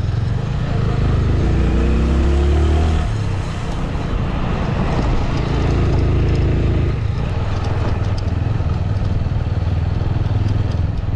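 Motorcycle engine running under way at low road speed, heard from the bike itself. The revs rise about two seconds in and pick up again around five seconds in, over a steady rush of noise.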